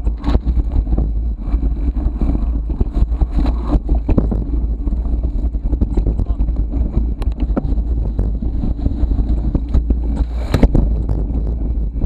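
Wind rumbling on an action camera's microphone during a mountain bike ride over a dirt and grass trail, with tyre noise and frequent rattles and knocks from the bike over bumps.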